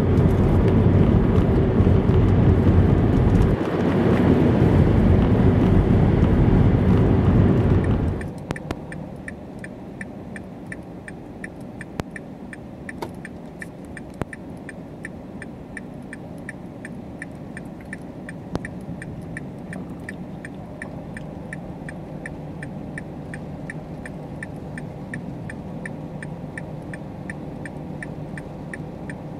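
A loud rumbling noise for about eight seconds, then it drops to a quieter steady low hum with fast, evenly spaced ticking.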